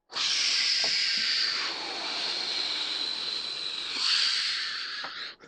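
A long, steady hissing whoosh, a spaceship-engine swoosh noise that goes with the LEGO U-Wing being flown around by hand. It swells briefly about four seconds in and cuts off just before the end.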